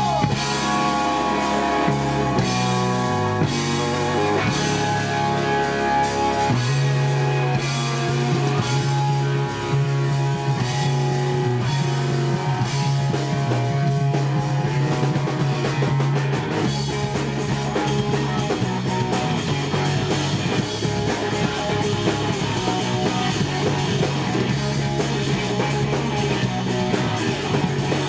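Rock band playing live in an instrumental stretch: electric guitar lead over drum kit and bass guitar. The guitar plays separate notes in the first few seconds, then a steady bass riff holds underneath.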